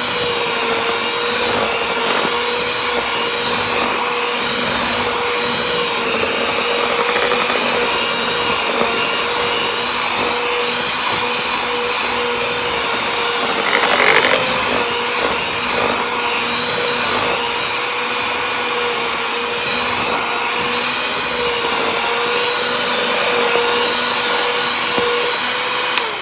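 Electric hand mixer running at a steady speed, its beaters whipping cream cheese frosting in a plastic bowl with a steady motor whine. It is briefly louder about halfway through, and the motor cuts off at the very end.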